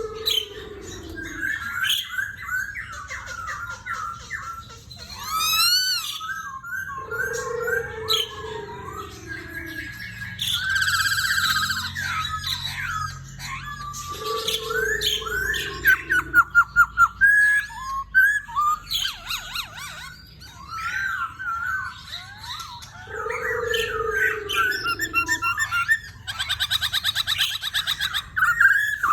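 Poksay Hongkong (Chinese hwamei) singing a long, varied song of rich whistles, quick trills and warbled phrases, with a lower falling whistle that comes back about every eight seconds.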